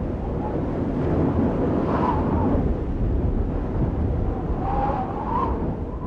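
Low, wind-like rumbling drone from the intro's sound design, with a brief wavering tone about two seconds in and again near the five-second mark.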